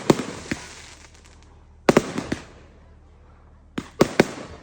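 Fireworks going off: sharp bangs in clusters of two or three about every two seconds, each followed by a fading hiss.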